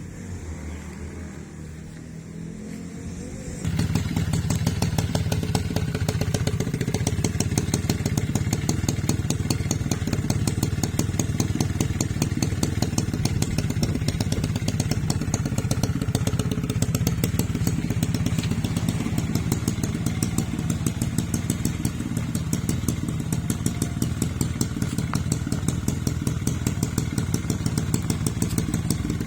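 Suzuki Tornado GX motorcycle engine running steadily with a fast, even pulse, which comes in suddenly about four seconds in after a quieter stretch.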